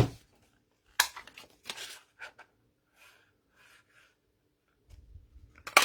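Card stock and paper-craft tools being handled: sharp clicks about a second in and a louder click with a dull thud near the end, with faint light rustling of paper in between.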